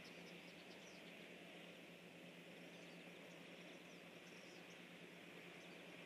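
Near silence: a faint, steady insect chorus with a few faint, short, high bird chirps scattered through it.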